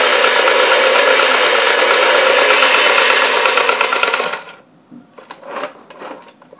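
The Toy State '57 Chevy Bel Air toy's electronic engine sound effect, a loud, rapidly pulsing idle rumble from its small built-in speaker, cutting off about four seconds in. A few light knocks follow as the toy is handled.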